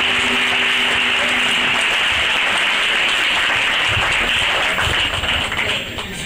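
Audience applauding at the end of a song. The last held chord of the music dies away about two seconds in, and the clapping thins out near the end.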